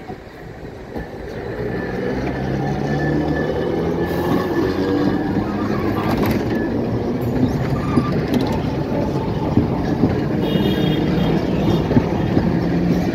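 Alexandria Raml tram approaching and passing close by: a steady low motor hum and the rumble of its wheels on the rails, growing louder over the first two seconds, with scattered clicks and a brief high tone about ten seconds in.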